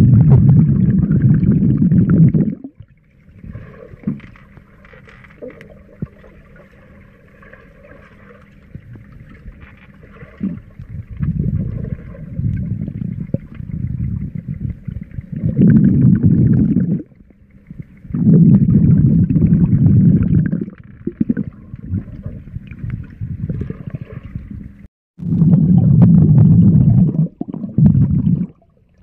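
Muffled underwater sound in a swimming pool: water rumbling and gurgling in loud bursts a second or two long, several times, with faint hiss between.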